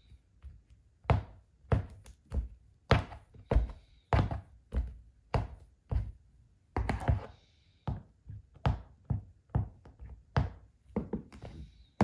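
High-heel sandals stomping on Play-Doh on a wooden floor: a steady run of hard heel and sole knocks, one to two a second, with a longer scraping sound about seven seconds in.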